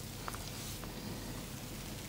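Hands massaging a person's body: soft rubbing over skin and clothing, with two faint clicks.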